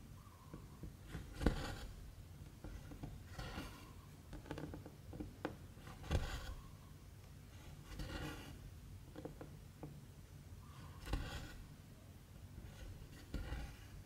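Embroidery thread drawn through 11-count stamped cross-stitch fabric with a needle: a scratchy pull every two to three seconds, with faint ticks of the needle between pulls.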